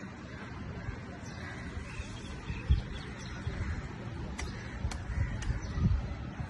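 Faint outdoor ambience from a high balcony: a low rumble, with birds calling. A brief soft thump comes a little under three seconds in.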